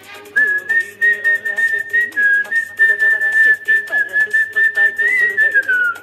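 A man whistling a film-song melody through pursed lips: one clear high tone held on long, near-steady notes, sliding down at the end of the phrase.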